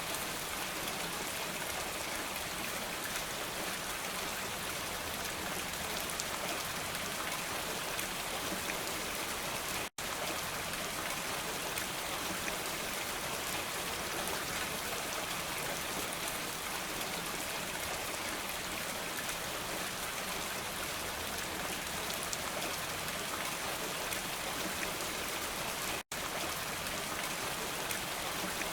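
Steady, even rain falling. The sound cuts out for an instant twice, about ten seconds in and again near the end.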